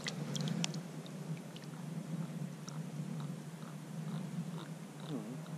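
Small wet clicks and crackles, densest in the first second, over a steady low rumble: the sounds of wet hands handling a freshly caught silver bream at the water's edge, right beside the camera.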